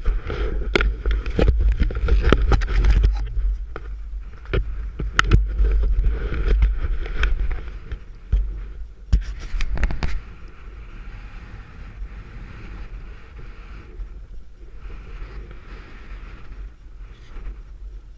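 Wind buffeting an action camera's microphone, with knocks and rubbing as the camera is handled, for about the first ten seconds. After that the sound drops to a steadier hiss of skis sliding over packed snow.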